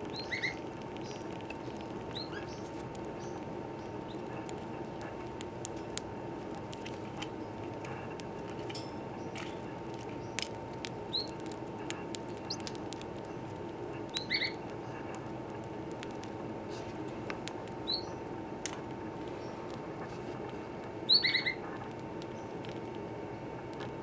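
Pacific parrotlet gnawing and shredding a piece of cork: scattered small crunching clicks, with a handful of short high chirps, the loudest near the end, over a steady background hum.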